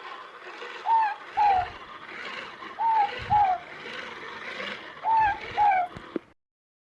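Ruru (morepork), the New Zealand owl, giving its two-note "more-pork" call three times, about two seconds apart.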